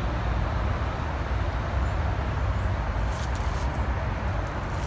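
Steady outdoor background noise: a low rumble with a hiss above it, like distant road traffic.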